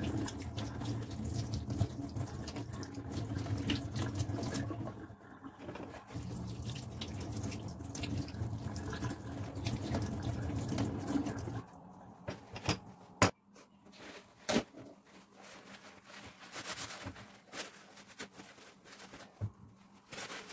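Kitchen tap running into a stainless steel sink, the stream splashing over a piece of dried beef turned in the hands as it is rinsed. The water cuts off suddenly a little past halfway, followed by a few sharp clicks and light handling sounds.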